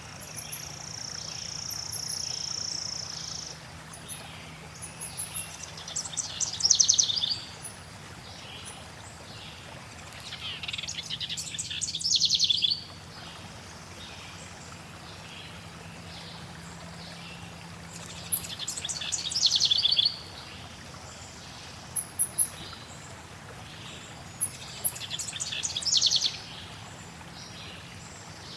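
Songbirds singing over a steady wash of flowing water. A held high whistle opens it, then come four fast trilled phrases spread a few seconds apart, with brief very high chips in between.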